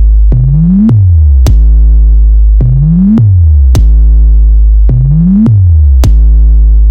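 Bass test track of electronic music: a deep, very loud sub-bass with bass notes that slide up and back down in pitch, punctuated by sharp drum-machine hits.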